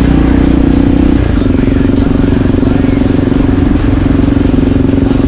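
Motorcycle engine running at steady revs while riding, its pitch dropping slightly about a second in.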